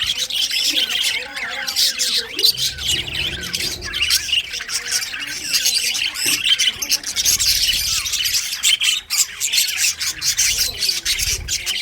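A group of budgerigars chattering and chirping continuously, with many overlapping squawks and warbles.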